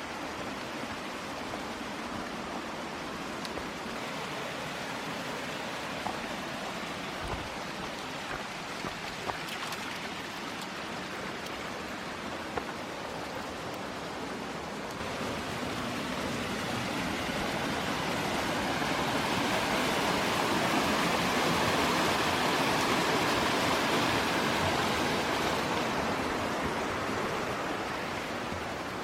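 Steady rush of water from a mountain stream or waterfall, swelling louder from about halfway through, peaking, then easing near the end. A few light knocks in the first half.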